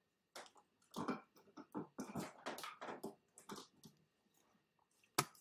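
Faint irregular rustling and soft knocks as a laptop charger and its cable are fetched and handled, with a single sharp click near the end.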